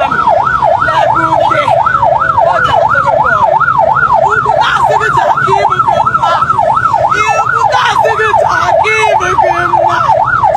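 Electronic siren in a fast yelp, its pitch sweeping up and down about three times a second without a break.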